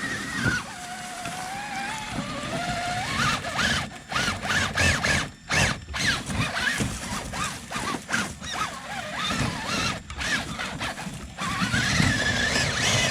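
Axial SCX6's Spektrum 1200kv sensored brushless motor and drivetrain whining under load while crawling over rocks. The pitch rises and falls in short surges as the throttle is worked.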